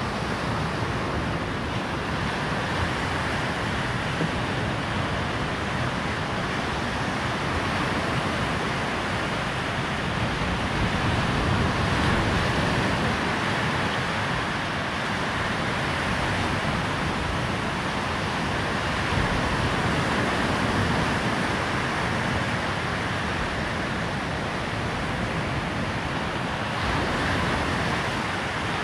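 Surf washing onto a sandy beach: a steady rush of breaking waves that swells a little louder every several seconds as each wave comes in.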